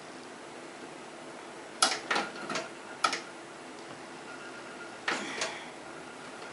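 Power and data plugs being pushed onto a computer storage drive: a few sharp plastic clicks and knocks in short clusters, about two seconds in, at three seconds, and again around five seconds in.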